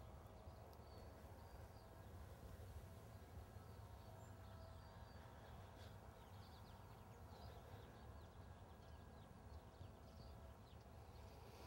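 Near silence: faint outdoor ambience with a low steady hum and a few faint, distant bird chirps.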